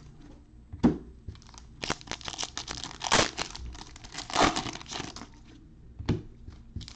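Foil Panini Select trading-card pack wrappers crinkling and tearing in irregular bursts as the packs are opened and the cards pulled out.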